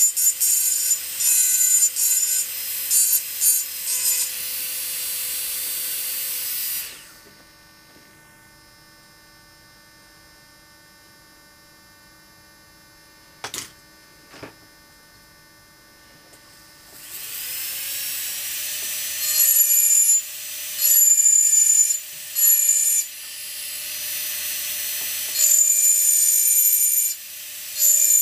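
Hand-held rotary engraving tool with a small burr grinding into a glass flute in stop-start bursts of high-pitched scratching. It goes quiet for about ten seconds, with two light clicks, then spins up again with a rising whine and grinds in bursts once more near the end.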